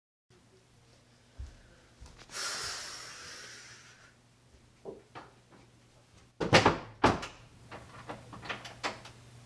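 Wooden interior door shutting in a small room: two loud knocks about six and a half seconds in, followed by several lighter clicks from the latch and knob. Soft footsteps come before it.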